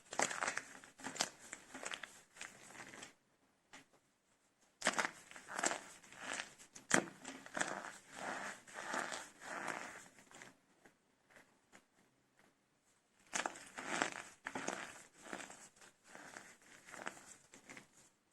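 Small cups of soap made with starch being broken and crumbled by hand, crunching and crackling in three bouts with short pauses between.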